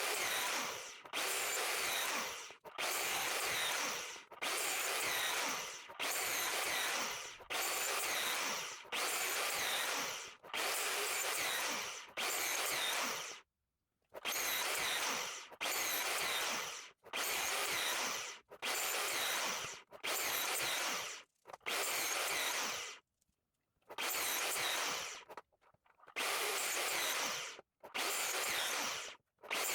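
Sliding miter saw with a thin fret-slotting blade cutting fret slots to a set depth in a wooden fretboard blank: a long run of about twenty short cuts, each about a second long and cut off abruptly, one after another.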